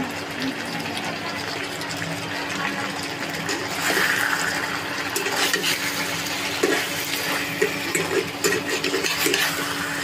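Chicken pieces with onions frying and sizzling in a nonstick pan on an induction cooktop, with a steady hum underneath. About four seconds in the sizzle swells as a spatula starts turning the pieces, and in the second half the spatula knocks and scrapes against the pan several times.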